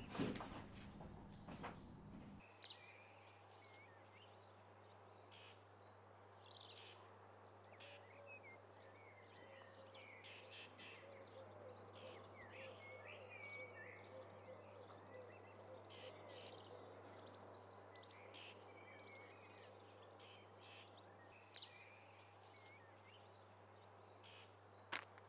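Faint outdoor ambience with many small birds chirping and singing over a steady low hum. A few sharp knocks at the very start.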